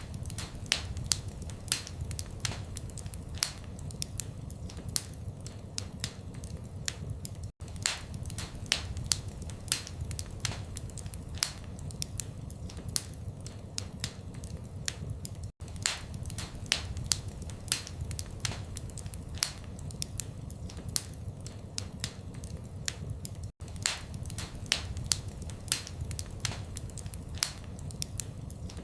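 Wood fire crackling: frequent sharp pops and snaps over a low, steady rumble of flames. The sound cuts out for an instant about every eight seconds.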